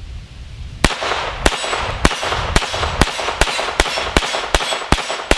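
Walther-made Colt 1911 .22 LR semi-automatic pistol firing rapidly: about a dozen sharp cracks, roughly two a second, starting about a second in, each with a short ringing tail.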